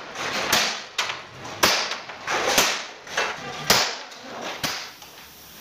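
About six sharp metal strikes, roughly one a second, on a Hino Dutro truck's steel chassis frame, as from hammer blows while the frame is being straightened. The strikes stop shortly before the end.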